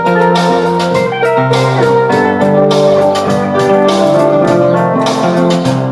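Instrumental break of a rock song, with a band playing chords led by piano and keyboards over bass and a steady beat, and no singing.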